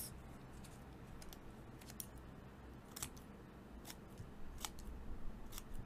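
Scissors snipping thin strips of paper into small pieces: a series of crisp snips at irregular intervals.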